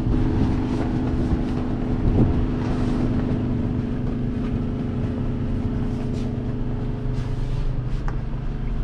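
New Holland T7.315's 6.7-litre six-cylinder diesel engine running at a steady, even pitch, heard from inside the tractor cab, with a brief knock about two seconds in.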